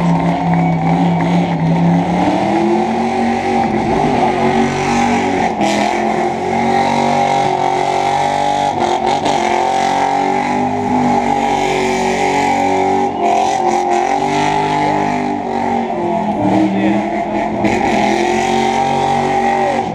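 A Ford Mustang's engine revving hard through a burnout, held at high revs with the pitch rising and falling in waves, over the hiss of spinning tyres.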